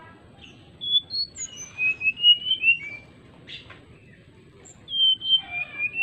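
Brown-chested jungle flycatcher singing: two phrases of clear, sliding whistled notes, the first starting about a second in and the second near the end.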